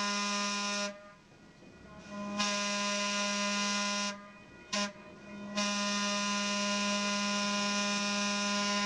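Replica Pacific Electric Red Car streetcar's horn sounding the grade-crossing signal, long, long, short, long, at one steady pitch. A long blast ends about a second in, a second long blast follows, then a short toot just under five seconds in, and a final long blast carries on.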